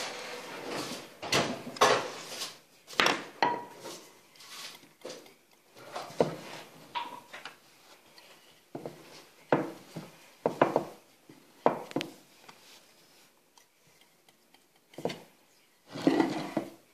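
Wooden rolling pin knocking and rolling on a wooden board as dough ropes are flattened: a string of irregular knocks, about a dozen, with short rubbing sounds between them.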